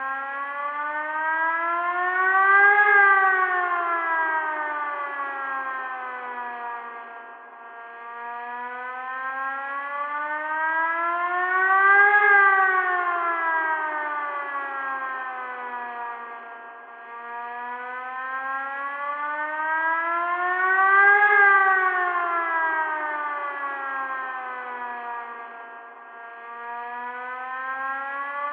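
Tornado warning siren wailing, its pitch slowly rising and falling about every nine seconds, cresting three times.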